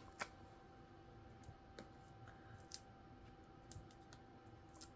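Near-silent room tone with about half a dozen faint, scattered clicks and taps: hands handling paper card pieces and foam adhesive dimensionals on a desk.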